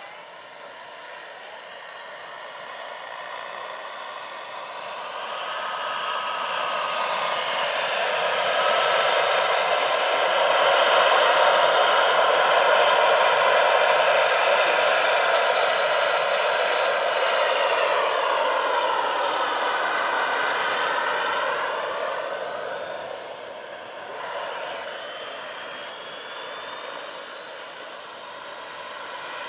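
Turbine engine and rotors of a roughly 1/5-scale Bell 412 model helicopter in flight: a steady high turbine whine over the rotor sound. It grows louder over the first several seconds as the helicopter flies close past, shifts in pitch as it passes, then fades, and swells again near the end.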